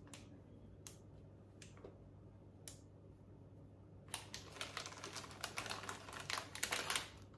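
A few light isolated clicks, then about three seconds of dense crinkling and rustling from a plastic sweet bag of mini eggs being handled, stopping about seven seconds in.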